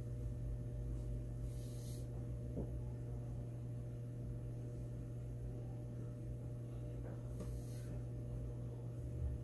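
Steady low hum under faint room noise, with a few brief soft hisses and a tick.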